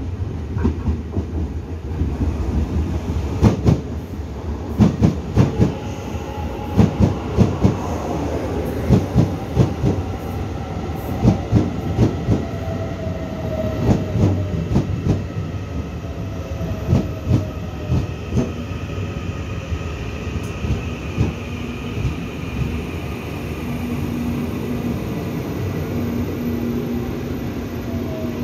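Taiwan Railway EMU900-series electric multiple unit pulling into a station: its wheels click over the rail joints in repeated pairs and groups, with a whine that falls in pitch as the train slows. In the last several seconds the clicking dies away and a steady low hum remains as it comes to a stop.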